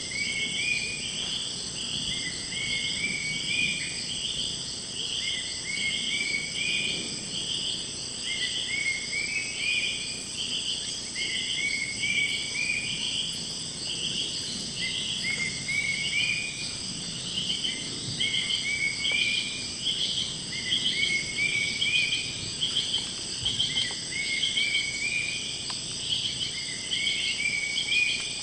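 Amazon rainforest insect chorus: a steady high-pitched drone with a pulsing chirp repeated about twice a second. A lower, short call rising in pitch comes every two to three seconds.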